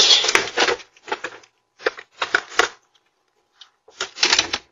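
A stroller's wheels bumping down concrete front steps and rolling onto the walkway, heard as several irregular bursts of rattling and scraping.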